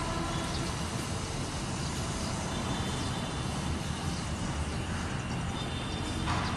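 Steady city traffic din from the streets far below: a low rumble with a hiss. A vehicle horn sounds briefly at the start and stops within the first half second.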